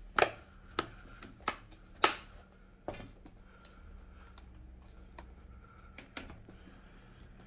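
Plastic clips of a Dell Latitude 7275 tablet's screen snapping into the chassis as the screen is pressed shut around its edges: a run of sharp clicks, the loudest about two seconds in, then a few fainter clicks.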